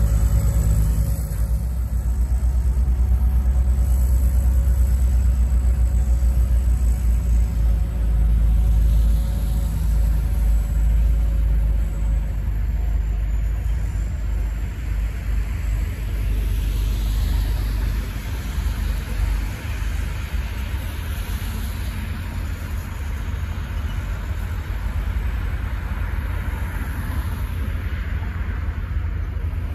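Heavy engine rumble of a LaRue snow blower working close by with a steady whine over it, fading through the middle as the machine moves off down the street. In the second half, tyre hiss from passing traffic on the wet road comes through.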